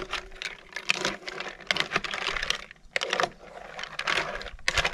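A spoon stirring mussels in their shells through tomato pasta sauce in a cooking pot, the shells clicking and clattering irregularly against each other and the pot.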